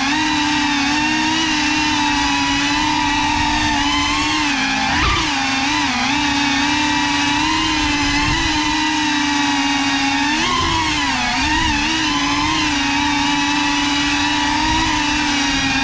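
GEPRC Cinelog 35 cinewhoop's brushless motors and ducted propellers whining steadily in fast flight. The pitch dips and climbs back briefly with throttle changes, once about a third of the way in and again past the middle.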